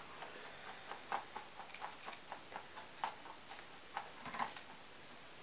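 Faint, irregular light clicks and taps, a few a second, with a slightly louder cluster about four seconds in.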